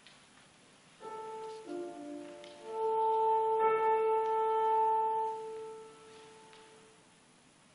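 Alto saxophone with piano playing a short, slow phrase: a few notes, then one note held for about four seconds that fades away.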